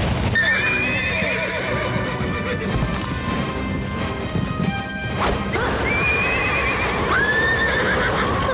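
Cartoon horse neighing in alarm several times, with hooves clip-clopping, over dramatic background music.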